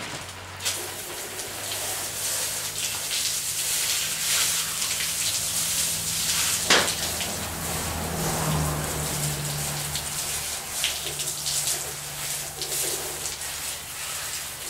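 Water from a hose spray nozzle spattering onto a bare Chevy 350 cast-iron engine block and running off, rinsing soap and honing grit out of the freshly bored cylinders. One sharp knock about halfway through.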